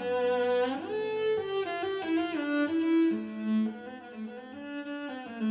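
Cello playing a slow melody of bowed, held notes, with a slide up into a higher note about a second in.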